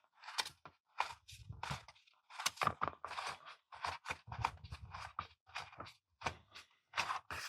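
Irregular short scrapes and clicks as the jigsaw's housing is handled and the fastening of its bottom faceplate is loosened.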